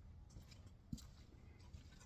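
Near silence: a faint low hum with a few light clicks and one soft knock about a second in.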